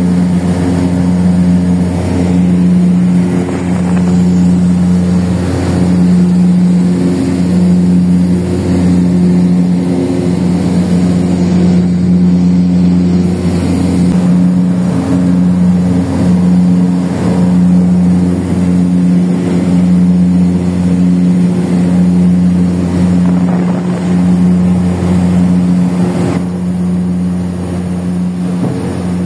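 Propeller aircraft's engines droning steadily in flight, heard inside the cabin: a strong low hum with steady overtones and a slow, regular throb.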